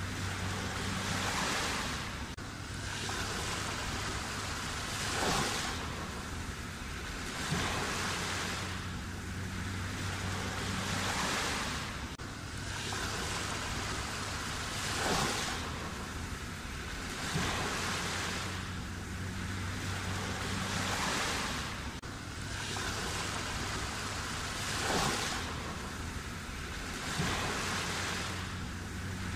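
Sea waves breaking and washing in, the surf swelling and falling back every couple of seconds, with a sharper crash every several seconds.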